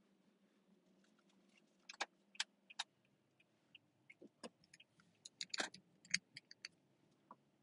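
Quiet car interior: a faint low hum with irregular small clicks and taps, a few about two seconds in and a denser cluster from about five to nearly seven seconds.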